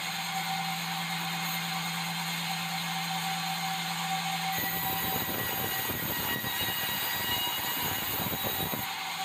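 Sawmill band saw headrig running with a steady high hiss and hum while sawing red meranti timber. About four and a half seconds in, a rough low rumble sets in for about four seconds, then stops.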